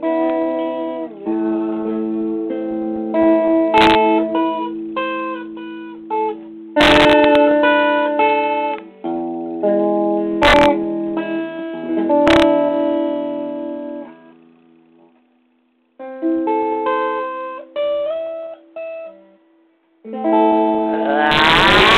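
Unaccompanied electric guitar playing picked single notes and chords that ring on. It breaks off twice in the second half and ends in a louder, denser passage.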